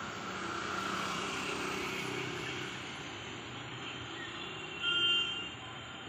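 Steady outdoor background hum, with a short, high, pitched sound about five seconds in that is the loudest moment.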